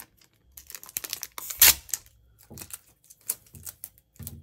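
Packing tape being peeled and pulled off its roll in a run of short, irregular rips, with crinkling of a plastic chip bag; the loudest rip comes about a second and a half in.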